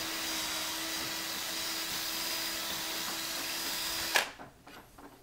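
Electric drill running steadily with a small bit in the keyway of a Schlage Grade 1 deadbolt cylinder, making no headway against the lock's hardened anti-drill pins. The drill stops suddenly about four seconds in, followed by a few light clicks.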